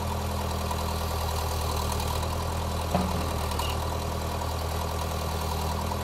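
Case 580E backhoe's diesel engine idling steadily, with one sharp knock about three seconds in.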